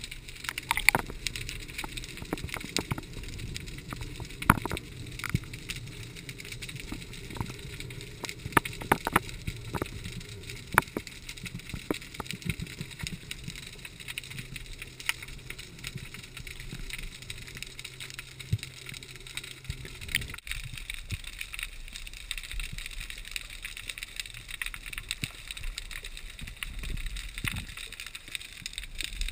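Underwater ambience picked up by a camera in its waterproof housing: a steady hiss with scattered sharp clicks and crackles, and a low hum that cuts off abruptly about twenty seconds in.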